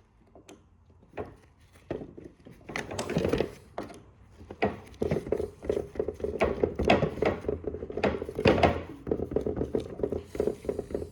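Screwdriver working a tight screw out of a printer part: scattered knocks and clicks at first, then a fast, dense run of clicking and grinding from about halfway in, with the bit possibly slipping in the screw head and stripping it.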